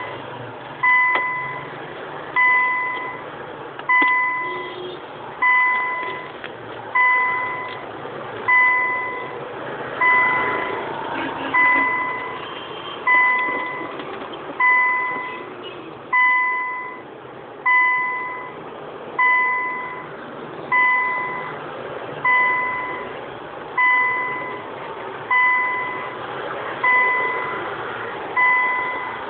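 A car's electronic warning beeper sounding a clear single-pitched beep over and over, about once every second and a half, each beep starting sharply and fading quickly.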